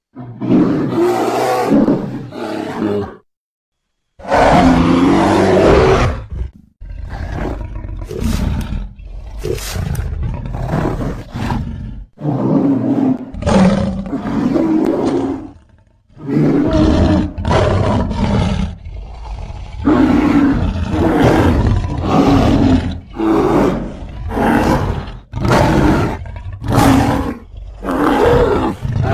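A run of separate animal-like roar and growl sound effects, each lasting about one to two seconds, with short pauses between them.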